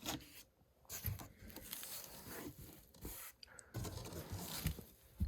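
Cardboard box and packing material being handled and opened: irregular scraping and rustling with a few sharp knocks.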